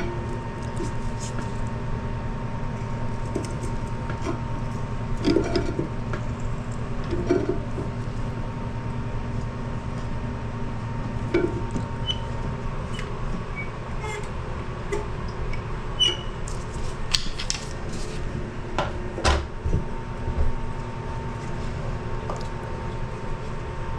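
Scattered clicks, knocks and clinks of channel-lock pliers and toilet-tank parts being worked by hand, over a steady background hum.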